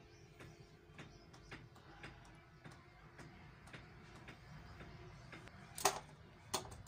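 Faint, regular ticking, about two ticks a second, over a low steady hum, with two louder sharp clicks near the end as an AA battery and wire-legged transistors are handled on a hard tabletop.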